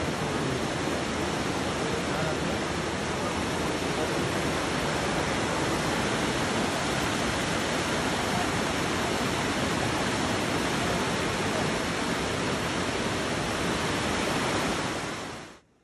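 Steady rush of fast-flowing muddy floodwater, cutting off suddenly near the end.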